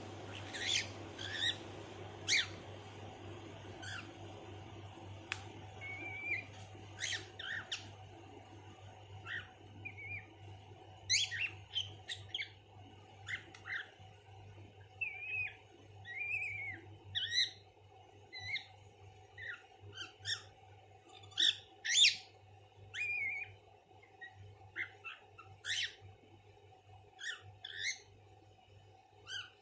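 Pet cockatiel giving a long run of short, irregular squawks and chirps, some with quick pitch glides, imitating a parrot. A steady low hum runs underneath.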